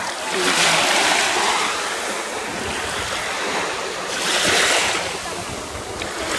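Small waves washing in over shallow water at the shoreline, a steady hiss that swells twice: about a second in and again about four seconds in.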